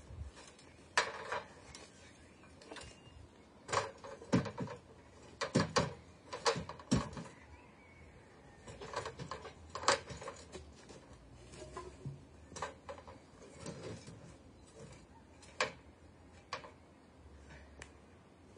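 Irregular knocks and clatters with light metallic rattling, about a dozen spread unevenly and thinning out near the end: an aluminium ladder being moved and set up against a timber frame.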